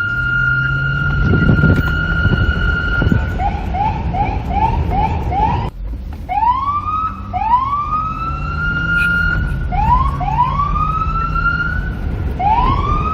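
Police car electronic siren: a steady high tone that switches about three seconds in to a fast run of short rising yelps, about three a second. After a brief break it goes into longer whoops, each sweeping up and holding, over a low background rumble.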